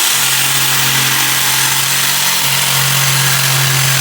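Total 800 W electric jigsaw running and cutting a sharp turn with its pendulum action set to position 3, a steady motor hum under a loud rasping blade noise that grows a little stronger about halfway through.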